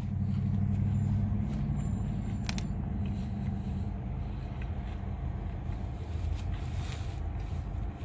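Steady low rumble of a motor vehicle's engine, a little louder in the first couple of seconds, with a few faint clicks.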